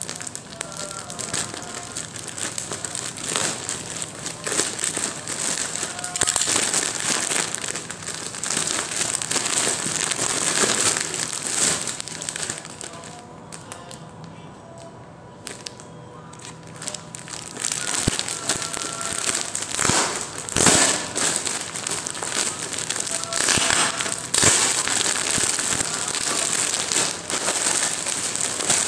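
Plastic packaging crinkling and crackling as a black plastic mailer bag is cut and pulled open, then as the clear plastic bag inside is handled and unfolded. There is a quieter lull about halfway through.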